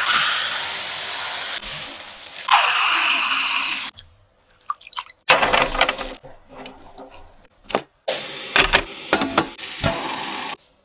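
Hulled mung beans poured in a stream into a plastic tub, a steady rushing hiss of falling grains for about four seconds. Then soaked beans are tipped out onto cheesecloth in a steamer tray in several shorter rushes.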